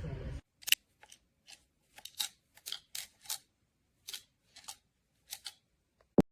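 A series of short, irregular clicks and snips, about a dozen over several seconds, ending with one sharp, louder click.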